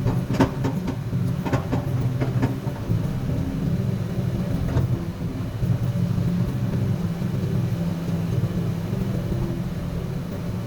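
Komatsu PC200 hydraulic excavator's diesel engine running steadily at work, with a few sharp knocks in the first few seconds and another about five seconds in.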